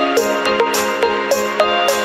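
Background music: a steady low drone under short plucked melody notes, with a high percussion hit about twice a second.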